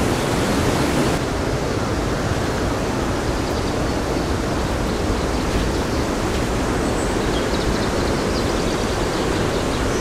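Fast-flowing river in full spate rushing over rocks, a steady, even rush of water; its hiss thins a little about a second in.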